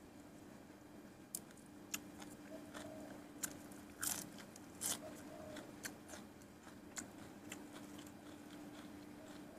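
A person biting and chewing crisp raw green vegetables close to the microphone: a string of short, sharp crunches, loudest about four and five seconds in, over a faint steady hum.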